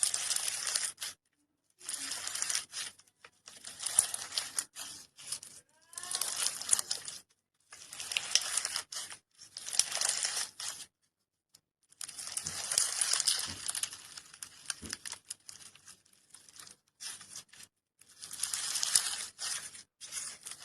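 Slime being squeezed and stretched by hand, crackling and popping in a string of short bursts, each a second or so long, with brief silences between them.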